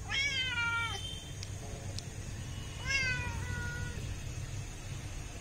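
A tabby cat meowing twice, about three seconds apart. Each meow lasts about a second, rising at the start and then sliding slightly down.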